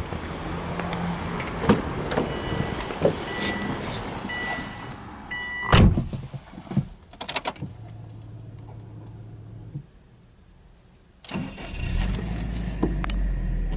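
A car door is shut with a loud thud, after a warning chime beeping and some clicks from getting in. Near the end, the Subaru Impreza WRX STi's turbocharged flat-four (boxer) engine cranks and starts, then runs at idle.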